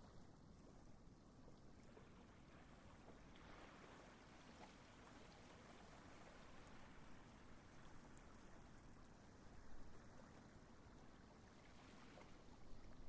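Near silence: faint steady outdoor background noise, a low rumble with a soft hiss that swells a little for a few seconds in the middle.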